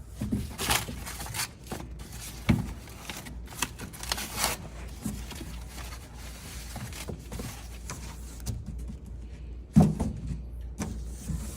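Cardboard support packing being pulled out of a shipping box: irregular scraping and rustling of cardboard, with a sharp knock about two and a half seconds in and another near the end.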